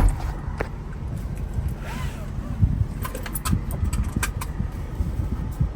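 Van engine idling, heard from inside the cab as a steady low rumble. A loud thump comes right at the start, and a few light clicks and knocks follow about three to four seconds in.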